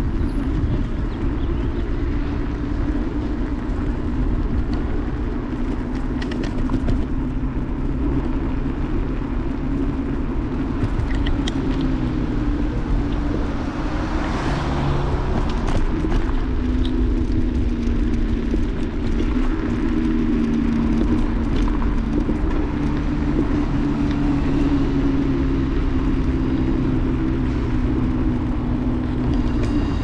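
Electric scooter riding along a street, heard from its handlebars: a steady rumble of tyres on asphalt with a motor hum that drifts slightly in pitch as the speed changes.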